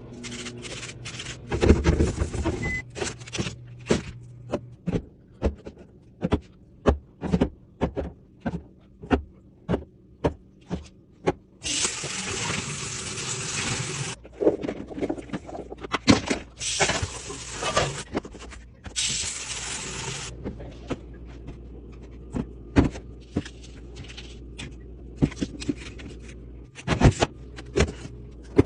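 Packaged groceries and containers being handled and set down one after another: many light clicks and knocks, with three stretches of rustling or hissing noise in the middle.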